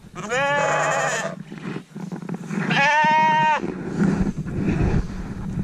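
Sheep bleating: two loud, long bleats of about a second each, the first just after the start and the second about three seconds in, the second with a wavering pitch.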